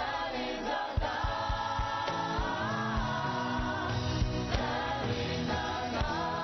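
Church choir singing a gospel song with musical accompaniment; a low beat and bass notes come in under the voices about a second in.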